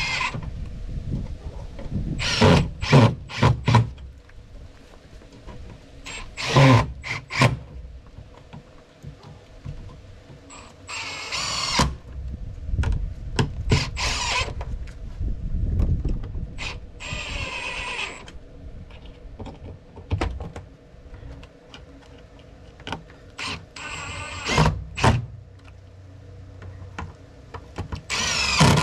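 Cordless drill driving screws into a plywood panel, in short runs of a second or so every few seconds, with a high motor whine in some runs.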